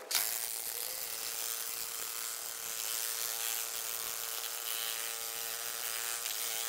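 Electric power tool motor running steadily with a high-pitched whine.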